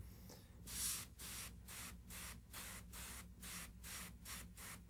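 Airbrush spraying paint, a faint hiss broken into quick pulses about four a second as the trigger is worked, over a faint steady low hum.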